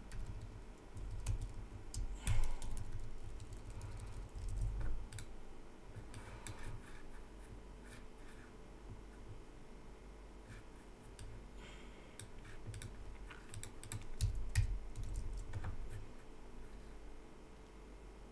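Computer keyboard typing in short, irregular runs of keystrokes, with scattered clicks.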